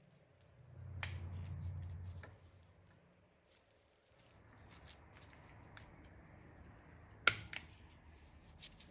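Small metal clicks as a snap ring is worked onto an LS rocker arm trunnion to lock it in place, with a sharp click about a second in and the loudest snap near the end, followed by a couple of lighter clicks.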